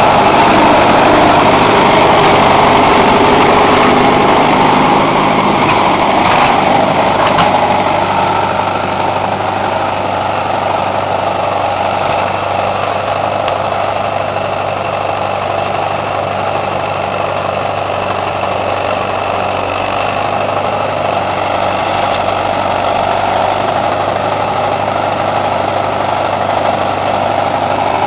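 Allis-Chalmers tractor engine running steadily under load while pulling a two-bottom moldboard plow through sod. It is a little louder for the first several seconds, then holds even.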